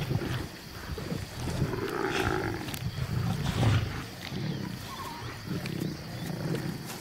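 Lions growling in repeated low bouts while feeding on a kill, squabbling over the carcass.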